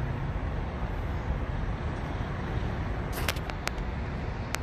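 Steady low outdoor traffic noise, with a few separate sharp clicks in the second half.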